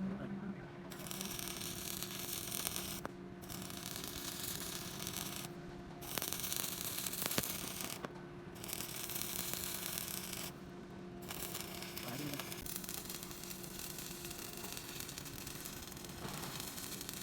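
Electric arc welding, filling up the outside of a bush with weld: a crackling hiss that comes in runs of about two seconds with short breaks, the last run about five seconds long, over a steady low hum.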